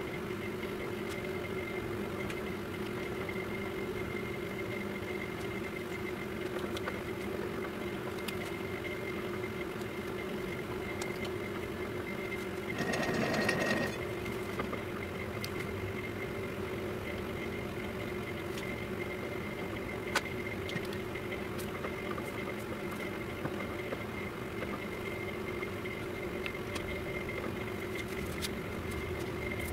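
Metal lathe running steadily, turning a jointer cutter-block shaft against a dial indicator to check its runout: a steady hum with a thin high whine. About thirteen seconds in, a louder noisy burst lasts about a second.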